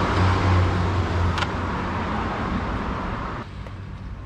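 Motor vehicle noise: a steady low hum with a hiss over it, dropping off abruptly about three and a half seconds in.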